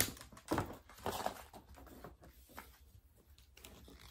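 A sharp tap, then faint rustling and handling noises that die down after about a second and a half.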